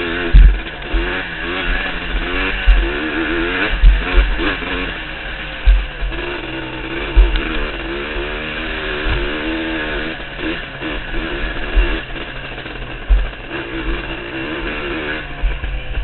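Yamaha YZ125 two-stroke dirt bike engine revving up and down continually under riding load, with repeated low thumps of wind and trail bumps on the helmet camera.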